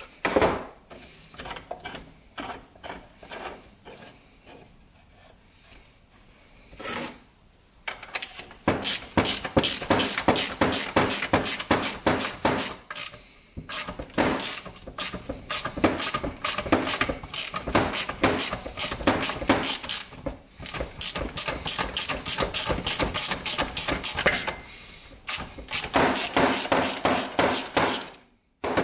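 Metal engine crankcase halves being worked apart by hand: a couple of knocks in the first seconds, then a long run of rapid scraping, clicking metal with short pauses.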